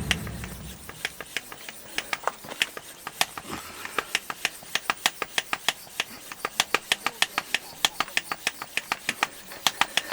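A long run of sharp, dry clicks, about five a second and unevenly spaced.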